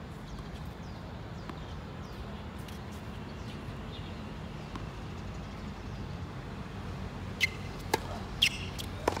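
Steady low background rumble, with four sharp knocks or clicks in quick succession near the end.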